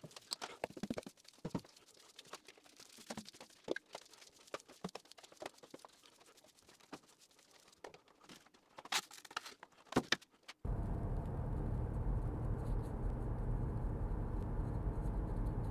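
A broom sweeping a concrete floor, with footsteps: irregular scratchy brushing and light taps, and a few sharper knocks near the ten-second mark. It then cuts abruptly to the steady low rumble of a car driving on the road, heard from inside the cabin.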